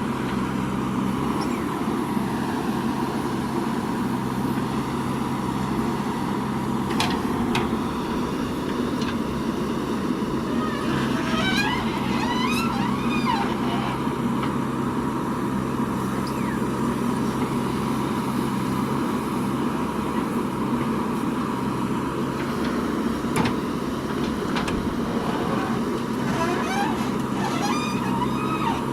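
JCB 3DX backhoe loader's diesel engine running steadily under hydraulic work, with a few sharp knocks scattered through.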